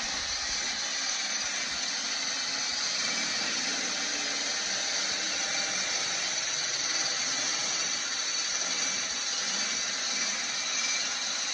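Electric mixer running steadily, whisking egg whites into foam that is nearly ready.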